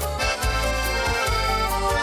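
Accordion playing an instrumental passage of a Russian folk-style song: a melody over a steady bass accompaniment of about two beats a second.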